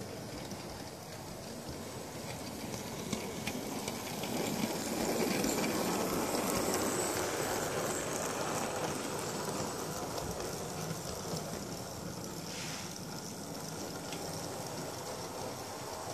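A Heljan OO-gauge Class 47 model diesel locomotive and its wagons running along model railway track, a steady whirring rumble of motor and wheels on rail. It grows louder as the train passes close by about five to nine seconds in, then fades as it runs away.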